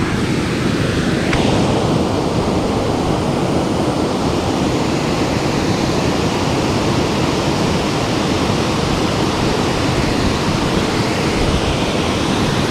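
Water rushing over a concrete erosion-control check dam on a mountain stream: a steady, loud rush.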